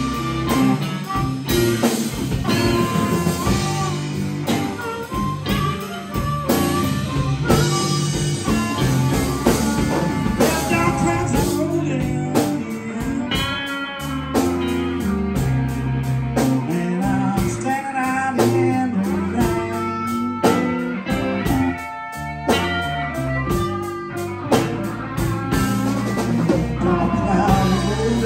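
A live blues band playing a slow blues: electric guitar soloing with string bends over electric bass and drum kit.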